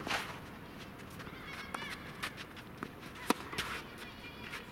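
Scattered sharp knocks of tennis balls on the courts, the loudest a little over three seconds in, over faint distant voices.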